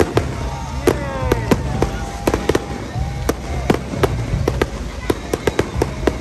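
Aerial fireworks display: shells bursting overhead in a rapid, irregular series of sharp bangs and crackles.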